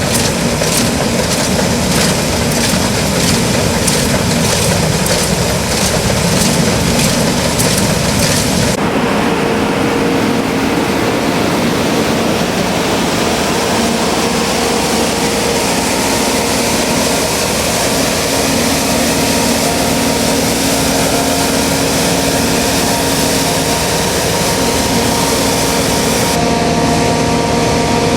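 New Holland CX8090 combine harvester running steadily during rice harvesting, its engine and threshing gear loud throughout. A rhythmic clatter in the first part changes abruptly about nine seconds in to a steadier run with a held whine.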